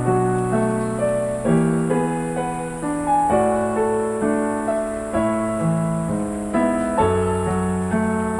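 Background music: a gentle piano melody with chords.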